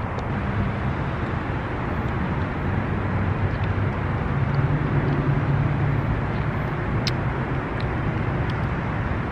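Steady road traffic noise with a low engine hum underneath.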